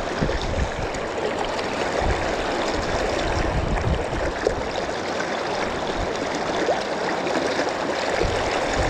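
Fast river current rushing steadily past, with a few short low bumps now and then.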